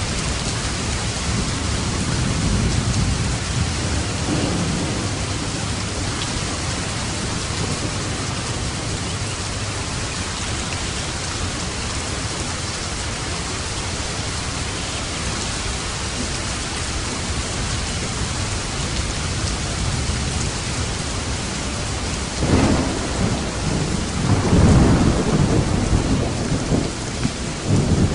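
Steady heavy rain hissing, with low rolls of thunder rumbling up late in the stretch, one after another.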